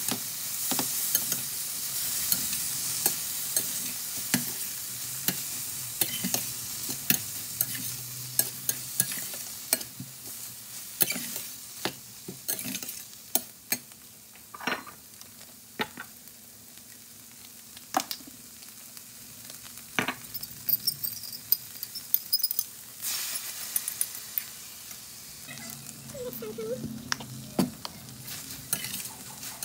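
Chicken and bell peppers sizzling in a stainless steel skillet as a metal slotted spatula stirs and scrapes them, with frequent sharp clicks of the spatula against the pan. The sizzle eases off about halfway through and picks up again near the end.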